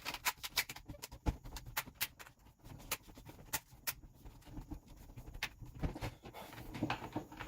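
Plastic front bezel of an MSI GP72M laptop screen being pressed on around the lid, its clips snapping into place: a run of small, irregular clicks and taps.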